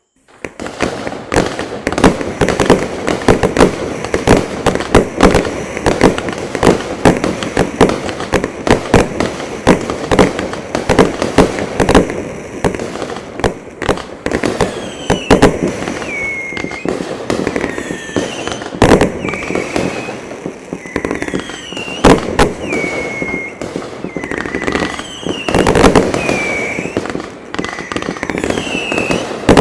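A 500-gram consumer fireworks cake firing: a rapid, continuous run of launches and bursts with crackling. From about halfway on, short falling whistles sound roughly once a second among the bursts.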